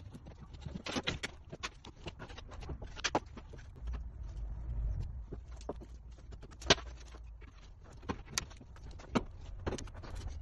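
Irregular knocks, taps and light clatter of wooden parquet pieces being handled and laid on stair treads, over a low steady hum. The sharpest knock comes about two-thirds of the way in.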